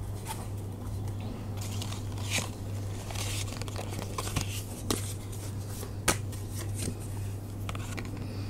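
Tarot cards being handled: papery rustling and sliding of card stock as cards are gathered up and another is drawn and set down, with a few light taps and clicks, the sharpest about six seconds in. A steady low hum runs underneath.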